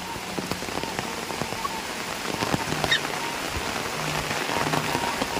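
Heavy rain falling on tropical foliage and a dirt path: a steady hiss of rain with many separate drops ticking through it.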